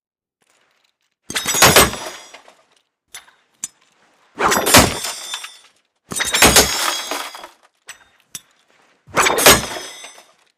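Kunai throwing knives hitting a target four times, each hit a sharp thunk with a metallic ring that fades over about a second. A few light clicks fall between the hits.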